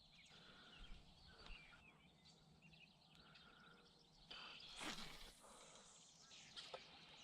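Near silence: faint outdoor ambience with scattered small bird chirps, and a brief rustle a little past the middle.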